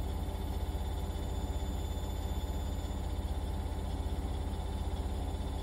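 A steady low hum with a fast, even flutter over a faint hiss.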